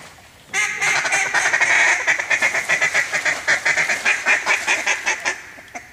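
Mallard duck calls blown hard and fast in cut-down style, a rapid run of loud quacks and chatter that starts about half a second in and stops shortly before the end. Water splashes as a hunter kicks it.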